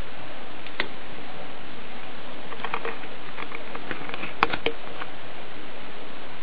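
Steady hiss with a few light, sharp clicks and taps: one just under a second in, a small cluster in the middle, and the sharpest pair about four and a half seconds in.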